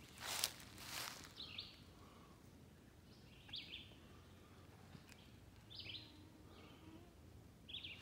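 Footsteps crunching through dry leaf litter for about the first second and a half, then a songbird giving short, high chirps every second or two.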